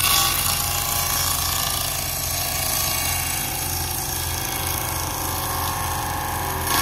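Table saw blade cutting through a thin plywood board. The cutting noise sets in suddenly as the board meets the blade and holds steady over the motor's low hum.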